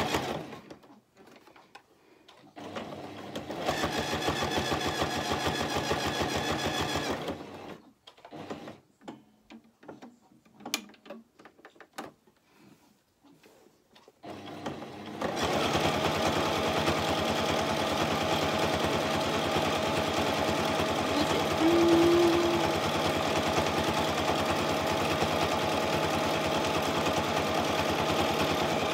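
A Toyota electric sewing machine top-stitching a jersey strap. There is a short burst at the very start, then a few seconds of steady stitching, then a quiet gap with faint clicks, and finally a long, unbroken run of steady stitching. A brief tone sounds partway through the long run.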